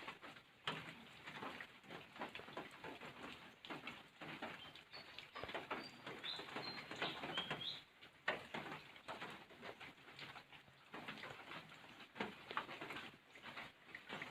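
Rain pattering and dripping in many irregular drops, with a few brief high bird chirps about halfway through.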